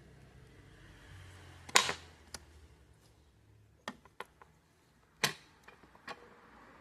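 Sharp plastic clicks and snaps from Epson ink-tank printer parts being handled and fitted during reassembly. Two louder snaps come about 1.8 s and 5.3 s in, with a few lighter clicks between and after them.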